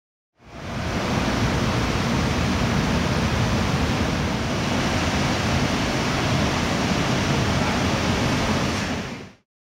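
Steady rushing noise with no distinct tones or rhythm, fading in just after the start and fading out near the end.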